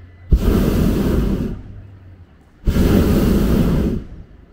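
Hot-air balloon's propane burner firing in loud blasts: two bursts of about a second each, each starting suddenly, with a third starting at the very end.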